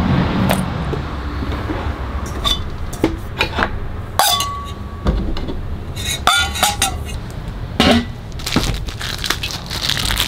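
Stainless steel mixing bowls knocking and clinking on a metal countertop, a dozen or so separate strikes, some ringing briefly.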